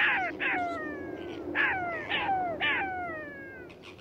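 Jackal howling: a run of about six high, wailing calls, each sliding steeply down in pitch and trailing off, growing fainter toward the end.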